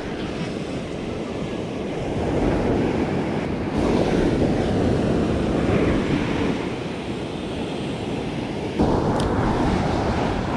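Ocean surf breaking on a sandy beach, with wind buffeting the microphone. The rush swells between about two and six seconds in, eases, then rises sharply again near the end.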